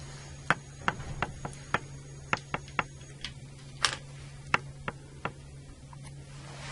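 About a dozen light, irregular clicks and taps of metal and plastic parts as a motor operator is fitted onto an Eaton Series NRX circuit breaker, its hub key pushed onto the breaker's camshaft key. The clicks fall in the first five seconds over a steady low hum.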